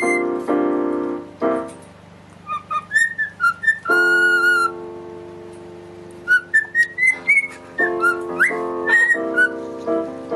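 A cockatiel whistling a tune of short notes that slide up and down, with one held note, along with piano chords played next to it.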